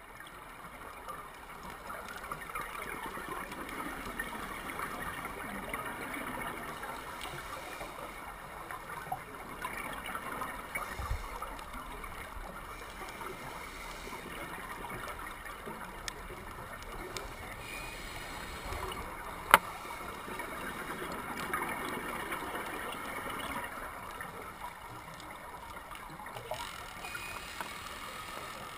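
Underwater ambient sound through a camera housing: a continuous watery hiss and gurgle that swells and fades. One sharp click comes about two-thirds of the way through.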